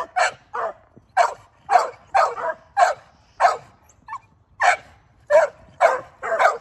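A puppy barking and yelping in short calls, about two a second, while held on its back for a vaccine injection.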